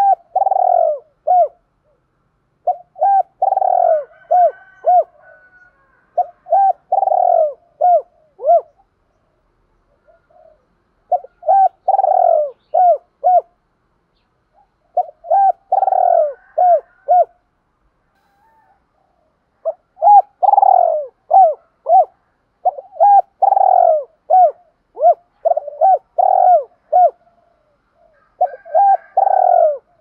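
Spotted dove cooing: short phrases of deep, arched coos repeated every few seconds, with a longer run of phrases in the second half.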